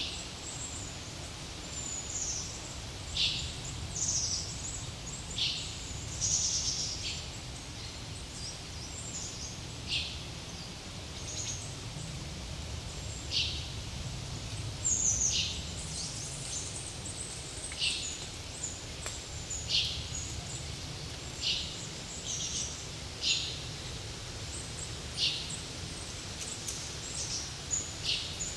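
Forest birds calling: short, high calls that slide downward, repeated every couple of seconds, over a steady low rumble of breeze.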